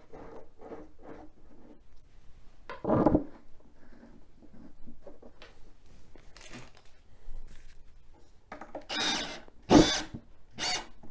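Short bursts of a power drill driving screws into the shelf panels, the loudest cluster of bursts near the end.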